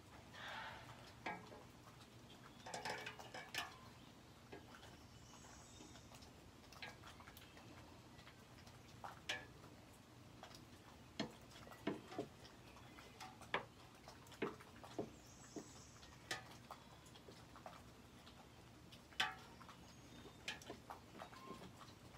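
Hand wrench clinking and ticking against a car's exhaust pipe and muffler clamp as bolts are worked from underneath: scattered, irregular metal clicks, with a short cluster about three seconds in.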